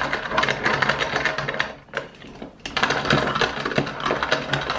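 Hand-cranked grinder crushing roasted peppercorns: a fast, rattling crunch from the turning crank, in two bouts with a short break about two seconds in.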